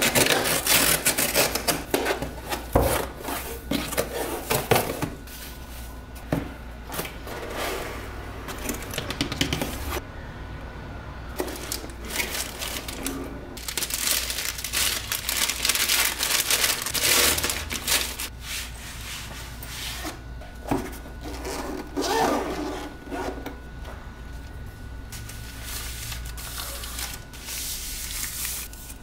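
A hair straightener being unboxed: cardboard and plastic packaging rustling and scraping in irregular bursts, with many small clicks and knocks from handling.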